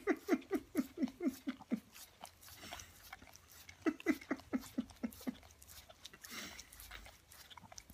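American Staffordshire terrier licking an ice lolly: quick wet licks about six a second, in one run of about two seconds at the start and another of about a second and a half some four seconds in.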